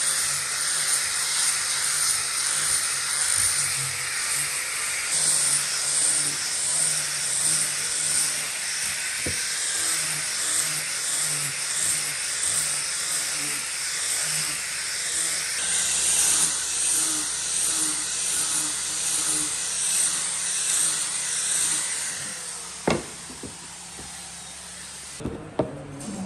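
A power tool runs steadily with a high, hissing whine, the kind of sound wood being cut or sanded makes. It stops about 22 seconds in, and a few sharp knocks follow near the end.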